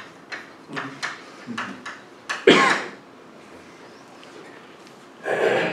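Chalk tapping and scraping on a blackboard in a run of quick short strokes as a word is written, then a sudden loud burst of laughter about two and a half seconds in and a shorter one near the end.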